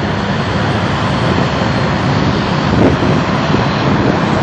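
Boeing 787 Dreamliner's jet engines running with a steady noise.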